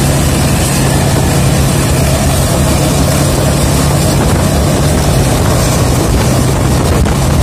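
A vehicle engine running at one steady pitch, with road and wind noise on the microphone.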